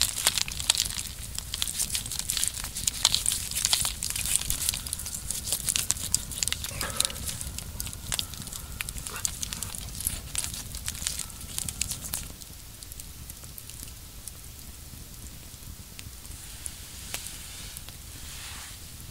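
Wood campfire crackling, with many sharp pops and snaps. The crackling drops away suddenly about two-thirds of the way through, leaving a quieter background with a soft swish near the end.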